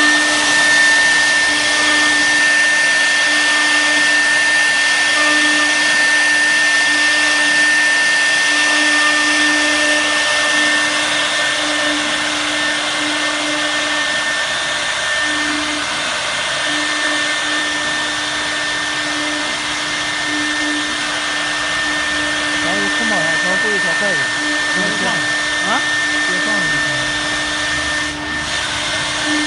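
CNC router running: a steady high-pitched whine over a constant rush of machine noise, with no break or change.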